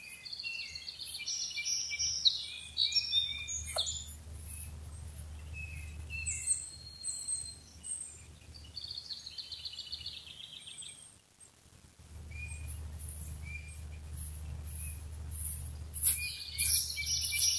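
Several songbirds singing, with short chirps and rapid trills repeating throughout, over a low steady rumble that drops out briefly about eleven seconds in.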